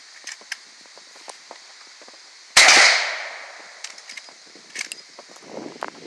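A single gunshot from a lever-action rifle: one sharp crack about two and a half seconds in, trailing off over about half a second. Light clicks and rustles of handling come before and after it.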